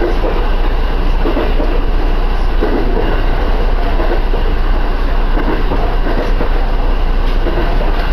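Interior noise of an electric train car running between stations: a steady rumble of the wheels on the track with a low hum.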